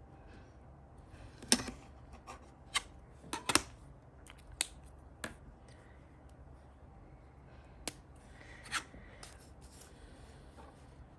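Scissors snipping paper in an irregular series of short, sharp cuts, with light rustling of paper between them.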